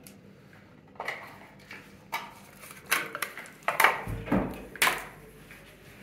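Handling noise of earphone packaging being unpacked: the cardboard box and the plastic earphone tray and cable knock and click against each other in a run of sharp taps, with a low thump about four seconds in.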